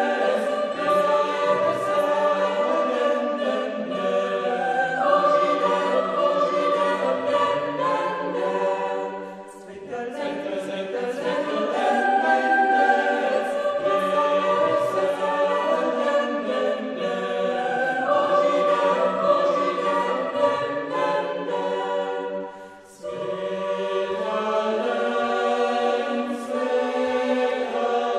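Choir singing slow, held chords in several voice parts, with two short breaks between phrases.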